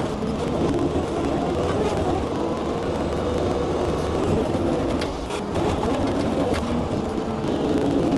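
An engine running steadily, with a few brief clicks about five seconds in.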